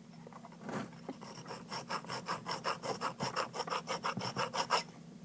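Hand file rasping back and forth on the edge of a freshly drilled hole in a metal bicycle seat post, in quick even strokes of about four a second that start about a second in and stop shortly before the end.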